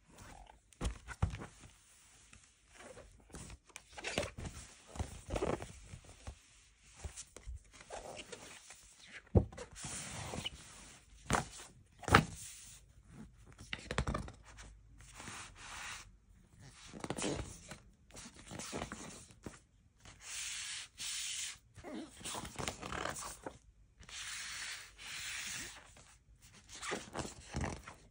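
Paper inner sleeve and cardboard jacket of a vinyl LP rustling and sliding as they are handled, with irregular scrapes and taps and longer swishing rubs in the second half.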